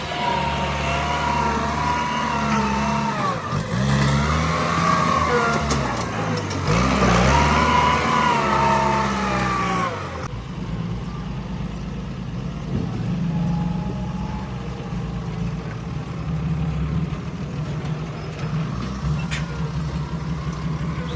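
Bulldozer's diesel engine working, its pitch dropping and climbing again twice as the load changes. About halfway through the sound changes abruptly to a steadier, lower engine note.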